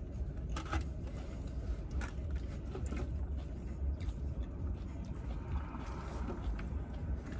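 Eating sounds in a car: scattered light clicks of utensils against food containers and some chewing, over a steady low rumble inside the car.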